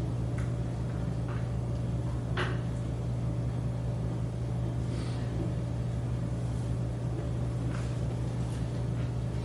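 Steady low hum with a few faint scratches and taps of a pen writing on paper.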